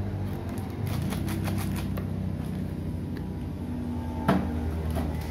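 Handling noises of a toddler at play: quick crinkling clicks of a plastic sweet wrapper, then a sharp knock on the metal lid of a cookie tin about four seconds in, over a steady low hum.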